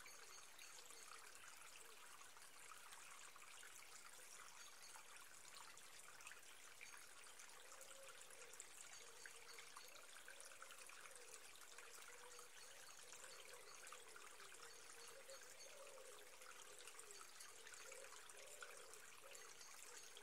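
Near silence: a faint steady hiss, with a faint wavering hum coming in about halfway through.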